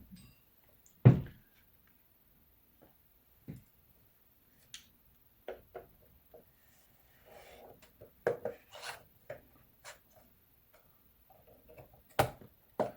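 The hard plastic case of a Yuneec ST-16 drone controller being pried apart: scattered clicks, scrapes and knocks, the loudest a sharp knock about a second in, a cluster of clicks around the middle and another sharp knock near the end.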